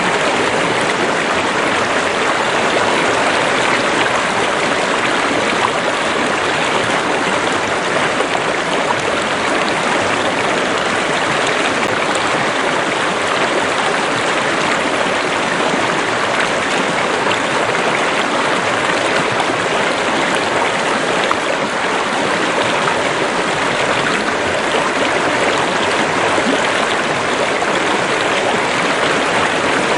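River water running and rushing over rocks, a steady, even loud flow.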